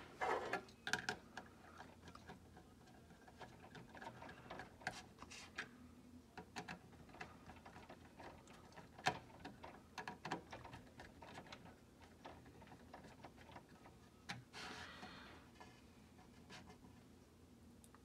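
Small, faint plastic clicks and taps, irregularly spaced, as a computer mouse's plastic shell and inner parts are handled and pressed together, with a short rustle about fourteen seconds in.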